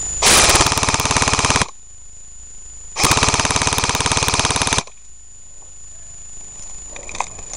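Close airsoft rifle firing two full-auto bursts, a rapid even stream of shots, the first about a second and a half long, the second starting about three seconds in and running nearly two seconds.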